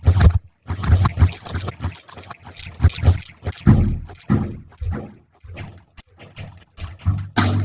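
Sound-design track made in BandLab: choppy, irregular bursts of harsh noise over a low buzzing drone, stuttering several times a second like scratching and grunting.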